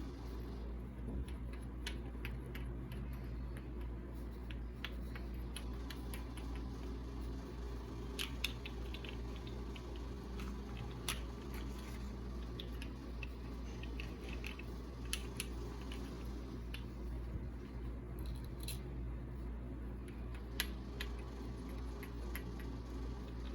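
Scattered light clicks and taps of small objects being handled, a few sharper than the rest, over a steady low hum.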